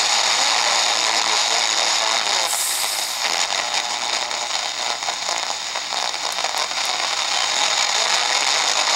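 Degen DE1106 shortwave receiver's speaker giving a steady hiss of static and interference while it is tuned up through the 49-metre band, with a brief burst of sharper hiss about two and a half seconds in. The noise comes from strong FM stations breaking through and swamping shortwave reception.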